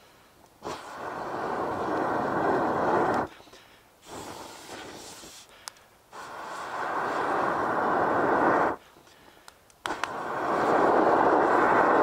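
A person blowing long, steady breaths into the kindling at the core of a Swedish fire torch log to fan it into flame. Four breaths of about two to three seconds each with short pauses between, the second weaker than the others.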